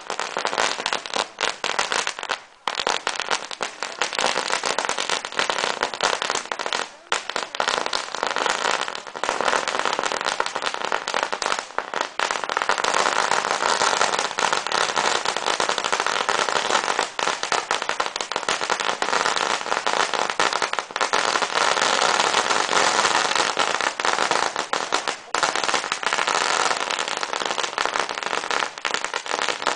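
Strings of firecrackers going off in a rapid, continuous crackle of bangs. There are a few short breaks in the first twelve seconds, then a long, denser stretch without a pause.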